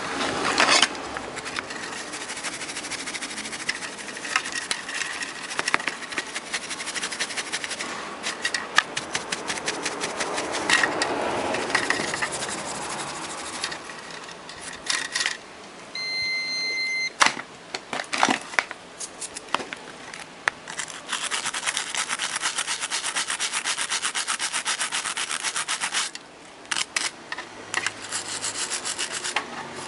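Brisk rubbing and scraping on the dusty control circuit board of a frequency inverter as it is cleaned, in long spells of quick strokes with scattered sharp clicks. A short high beep sounds about halfway through.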